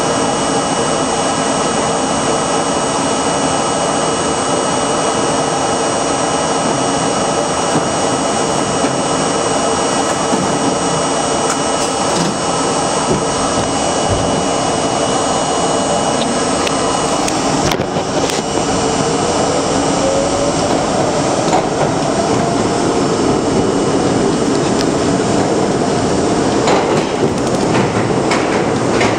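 New York City subway train, heard from inside the lead car: a steady loud hum with fixed high whines from the car's equipment while it stands at the station. Past the middle a motor whine begins rising in pitch as the train pulls out and accelerates into the tunnel.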